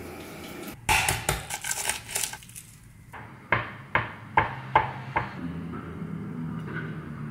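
A kitchen knife chopping hard-boiled egg on a wooden cutting board. A quick flurry of sharp clicks and taps comes first, then about five firm chops a bit over two a second, then a low steady hum.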